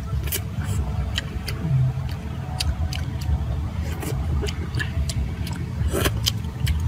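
A man eating snail stew with many short, sharp mouth clicks and smacks as he chews, over a steady low rumble.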